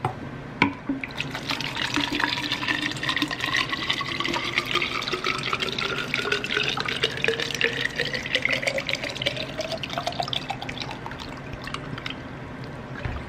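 Water pouring from a plastic gallon jug into a smaller plastic water bottle, the pitch of the filling rising steadily as the bottle fills. A sharp click about half a second in.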